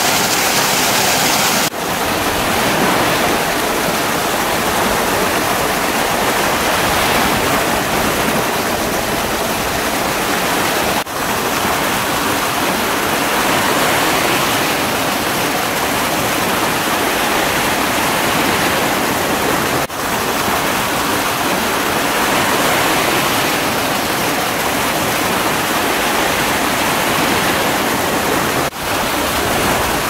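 Steady rush of falling and running water from a small waterfall and its stream, broken by four short dips in level.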